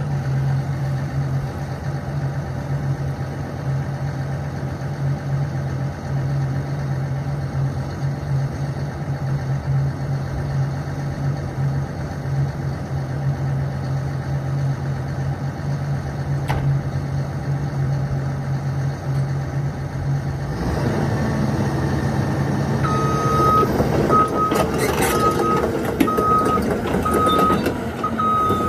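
2013 Cat 320EL hydraulic excavator's diesel engine idling steadily. About twenty seconds in it gets louder as the machine starts working, and a few seconds later its travel alarm starts beeping about once a second, with some clanks as it moves off.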